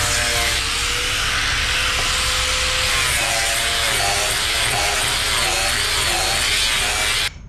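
Handheld angle grinder with a sanding disc running steadily as it sands a strip of hardwood. It cuts off abruptly near the end.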